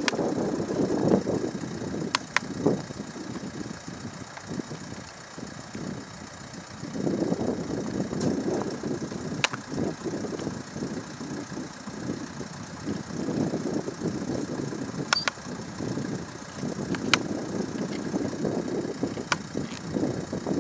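Mount Etna erupting: a low, rough rumble from the lava fountaining at the crater, swelling and fading in surges every few seconds. A few sharp clicks stand out over it now and then.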